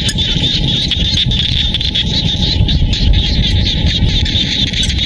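Chorus of frogs calling, a dense, unbroken high-pitched trill, over a steady low rumble.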